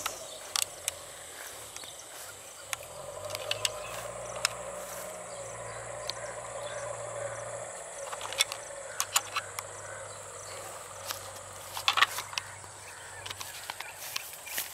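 Steady outdoor insect chirring with a constant high thin tone, overlaid by scattered sharp clicks and taps, the loudest about twelve seconds in.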